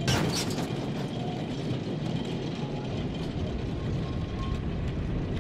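Narrow-gauge field railway train rolling along behind a small steam locomotive, with a steady metallic clanking and rattling from its chain couplings and running gear.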